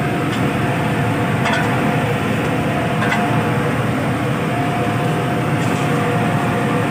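Steady shipboard machinery drone with a thin steady whine, in the space around a lit garbage incinerator. Two light knocks come about a second and a half and three seconds in.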